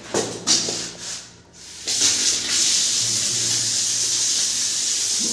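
Water pouring from a wall-mounted chrome bathroom tap and splashing onto the floor as a steady hiss, starting about two seconds in after a few short knocks.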